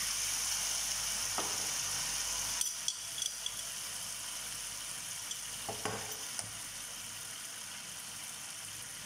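Garlic-butter and ketchup sauce sizzling steadily in a frying pan, easing slightly about three seconds in, with a few light clicks of the plastic spatula against the pan.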